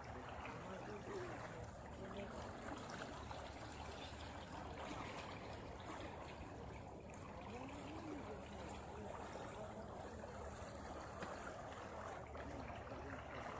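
Steady rush and trickle of lake water moving along a boat's hull, with faint voices now and then.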